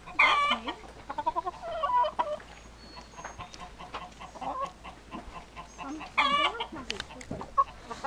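A rooster clucking, with two loud short calls, one at the start and another about six seconds later, and a run of quick broken clucks between them.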